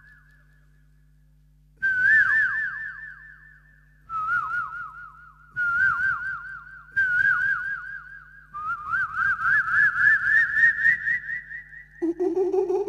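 A man imitating an Asian koel by whistling through cupped hands into a microphone. Five warbling whistled phrases come with short gaps, and the last one climbs steadily in pitch. A lower note starts near the end.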